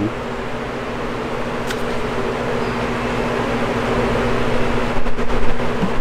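A steady mechanical hum: a constant low drone under an even rushing noise, like a running motor or fan, with a few faint clicks about five seconds in.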